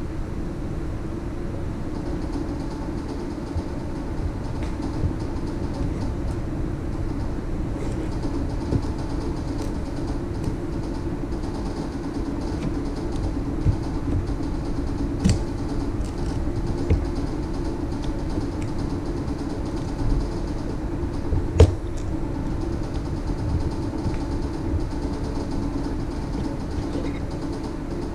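A steady mechanical hum, such as a motor or fan, with a few sharp clicks, the clearest about halfway through and again about three quarters of the way through.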